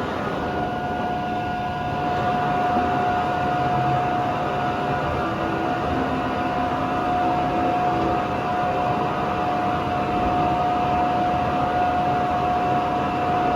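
Droop & Rein bed milling machine running under power, a steady high whine that holds one pitch after rising up just before.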